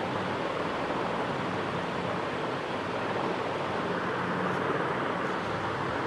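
Steady rushing background noise with a faint low hum underneath; no bird calls stand out.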